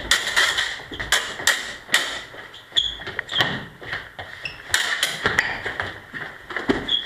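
Steel practice swords clashing in sparring: a rapid, irregular series of blade-on-blade strikes, about a dozen, several leaving a short high metallic ring.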